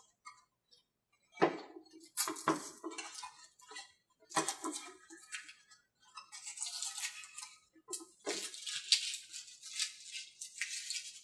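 Blue masking tape being peeled off a wooden model-airplane fuselage and crumpled, heard as two long crackly rips in the second half, after a few light knocks of the fuselage and parts handled on the table.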